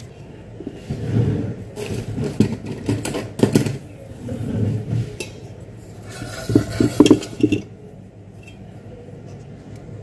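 Stainless steel mixing bowl and kitchen utensils clinking and knocking as they are handled and set down on a counter, in two clusters of sharp knocks.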